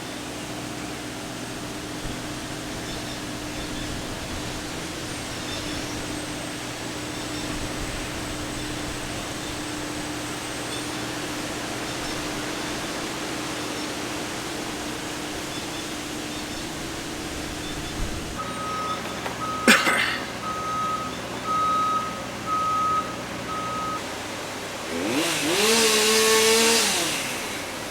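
A van's engine runs steadily with a humming drone, then cuts off. A sharp click follows, then a series of short electronic chime beeps. Near the end comes a loud, brief sound that rises and falls in pitch.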